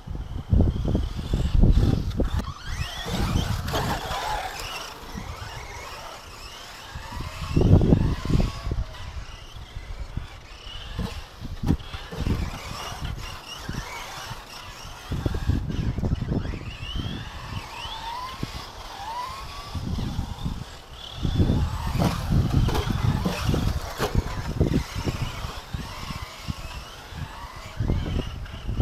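Tekno SCT410 electric RC short-course truck driving laps, its motor whining in short rising glides as it accelerates out of turns. Heavy wind gusts rumble on the microphone throughout.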